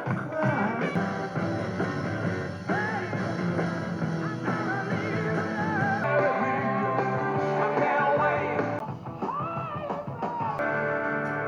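Rock and roll music playing.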